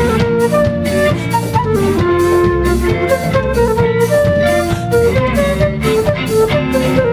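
Live band playing an instrumental passage: a flute carries the melody in held notes over electric guitar, bass and drum kit keeping a steady beat.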